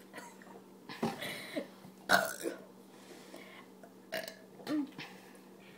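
Several short burps from gulped fizzy soda, spread over a few seconds, the loudest about two seconds in.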